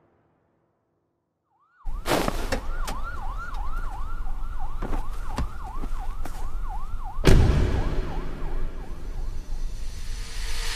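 Silent for about two seconds, then an emergency-vehicle siren in a fast yelp, sweeping up and down about three times a second over a low rumble. Several sharp knocks come through it, with one loud thud about seven seconds in, and the siren fades out near the end.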